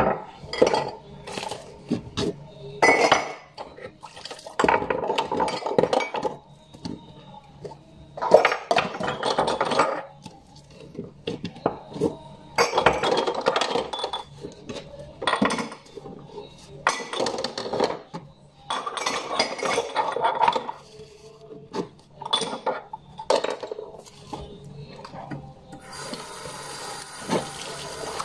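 Dishes being hand-washed in a stainless steel sink: plates and cutlery clatter and a sponge scrubs in irregular bursts. Near the end the tap starts running steadily.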